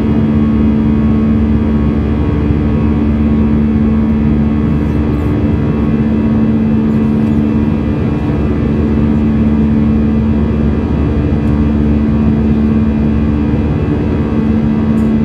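Jet airliner's turbofan engines heard from inside the passenger cabin beside the wing: a steady, loud drone with two low, even hums over a constant rush of noise.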